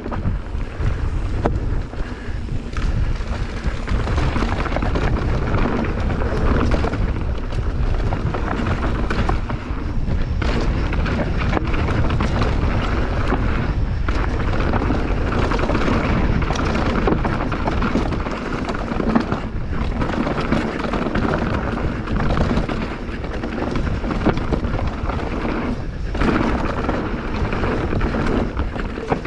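Steady, loud rumble of a mountain bike running fast down a dirt singletrack trail: tyre and frame noise over the ground mixed with wind buffeting the camera microphone.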